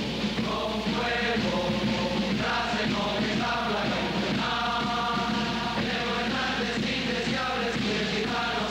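Music with a chorus of voices chanting a melody in long held notes.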